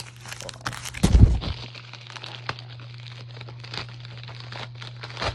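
Paper packaging being handled and opened: irregular crinkling and crackling, with a single low thump about a second in and a steady low hum underneath.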